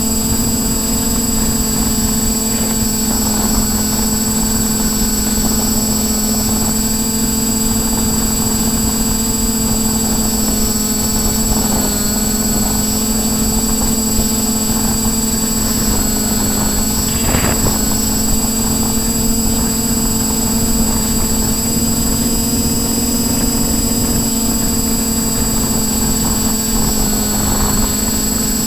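Quadcopter's electric motors and propellers running steadily in flight, a constant hum with a high whine over a rush of air, heard from the onboard camera.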